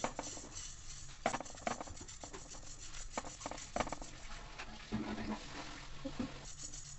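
Silicone spatula stirring whole spice seeds (fennel, cumin, fenugreek, mustard seed, ajwain) as they dry-roast in a steel kadhai over low heat. The seeds rustle and scrape against the metal pan in irregular strokes.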